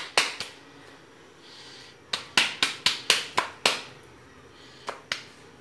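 A ball of paratha dough being patted flat between the palms by hand. It makes quick runs of sharp slaps, about four a second: two at the start, about seven in the middle, and two near the end.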